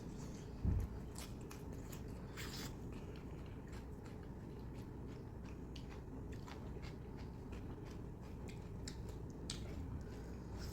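Close-up chewing and biting of food, with many small wet smacks and crunchy clicks. A single dull thump about a second in is the loudest sound.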